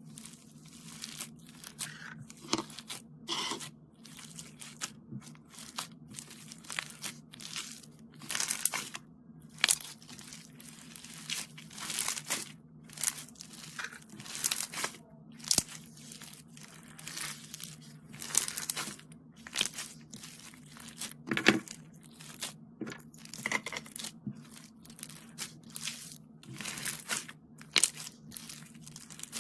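Foam slime being squeezed and poked by hand: irregular crunchy crackling squishes, several a second, some louder than others.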